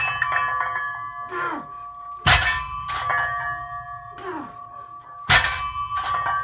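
Plate-loaded barbell with resistance bands set down on the floor between deficit deadlift reps: two heavy clanks about three seconds apart, each followed by the weight plates ringing.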